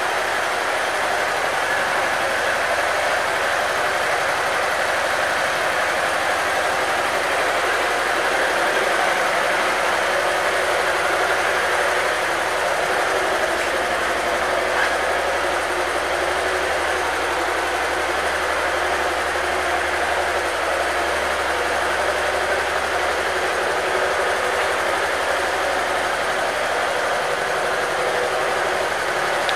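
Honda DN-01's 680 cc V-twin engine idling steadily, with no revving.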